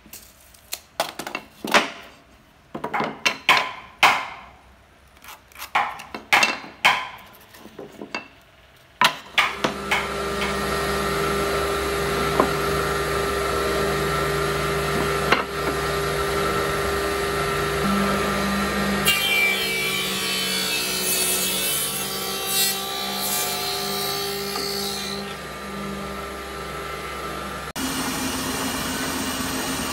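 A string of sharp knocks and scrapes of wooden pieces being handled. About nine seconds in, an electric woodworking machine starts and runs steadily with a motor hum. A little later its blade cuts into wood for several seconds, adding a harsher rasp, and near the end the sound shifts abruptly.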